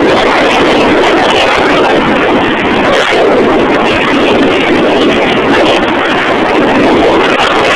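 Loud, steady rush of wind over the microphone mixed with the noise of a UH-60 Black Hawk helicopter, heard while hanging on a rope beneath the helicopter in flight.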